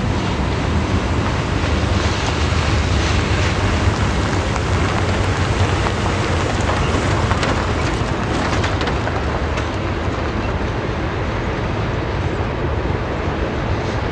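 Freight train rolling past: a steady, loud rumble of wheels on the rails, with a few sharp high ticks and squeaks about halfway through.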